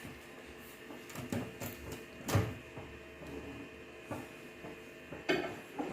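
Knocks and clunks of a bowl of water and eggs being set inside a microwave oven and the oven handled, with one louder clunk about two seconds in and more knocks near the end.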